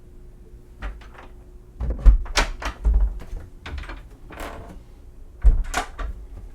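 Cabinet storage drawers being pulled open and pushed shut: a few light clicks about a second in, then louder knocks and sliding thuds around two to three seconds in and again near the end.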